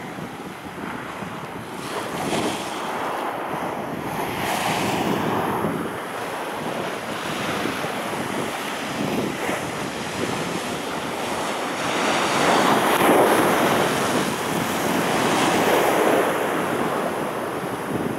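Sea surf breaking and washing up a sloping concrete seawall in repeated surges, the loudest about two-thirds of the way through, with wind buffeting the microphone.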